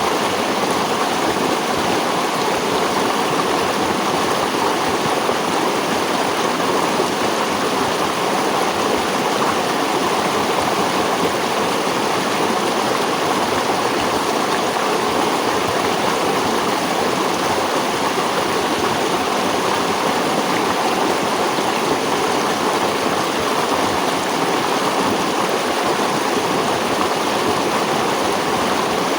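Running water of a stream flowing steadily, a continuous even rush and burble with no breaks.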